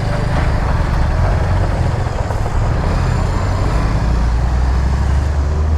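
Bajaj Avenger motorcycle riding along at road speed: a steady low engine rumble under road and wind noise.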